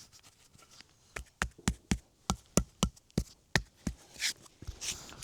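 A quick series of about a dozen knocks, roughly four a second, tapping a concrete footer pad down into its sand bed to level it, followed by softer scraping near the end.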